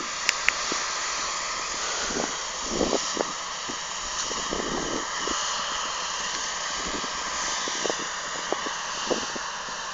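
Distant CLAAS Lexion combine harvester running as it harvests, heard as a steady hiss and drone, with small scattered knocks on the microphone.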